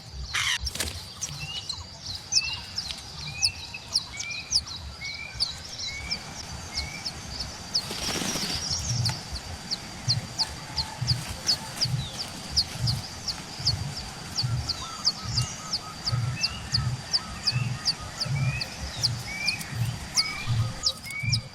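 Birds calling: a rapid, even series of short high chirps about two to three a second, with a slower series of rising whistled notes twice. A soft low thudding pulses about twice a second underneath.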